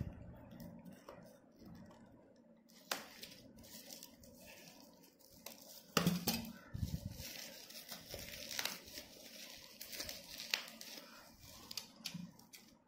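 Plastic bubble wrap crinkling and rustling as it is handled and cut open with scissors, with scattered sharp clicks; the loudest is about six seconds in.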